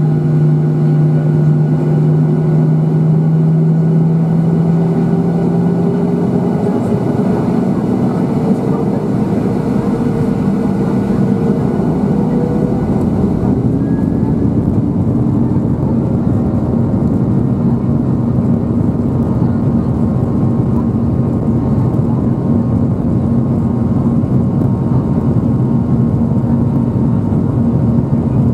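Cabin noise over the wing of a Boeing 737-800 taxiing onto the runway: its CFM56-7B engines run with a steady low hum, then from about six seconds in the noise thickens and the engine tones slowly rise as thrust is added.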